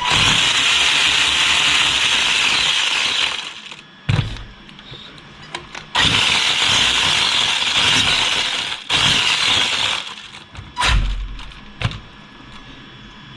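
Wltoys 124019 RC buggy's electric motor and drivetrain whirring loudly in three bursts with the wheels spinning freely, each followed by a short clunk as it slows. The clunk on slowing is the drivetrain fault being checked; the owner plans to open the differentials to check their grease.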